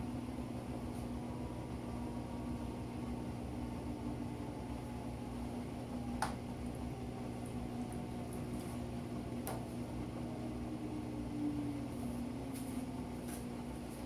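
Panasonic top-load washing machine in its spin cycle, the drum spinning a load of towels with a steady motor hum, and two short clicks about six and nine and a half seconds in.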